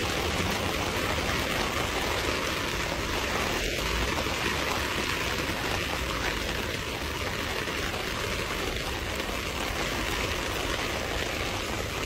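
Heavy rain falling on standing floodwater, a steady even hiss.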